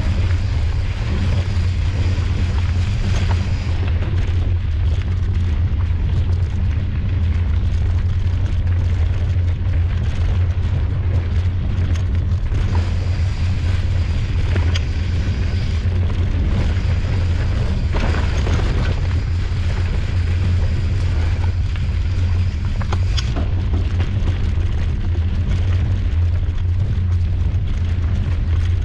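Heavy wind rumble on the microphone of a camera on a mountain bike riding down a rocky dirt trail, with a few sharp knocks and rattles from the bike over rocks.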